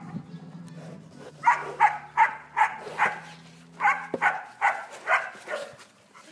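A dog barking repeatedly in two quick runs of short barks, about three a second, with a brief pause between them.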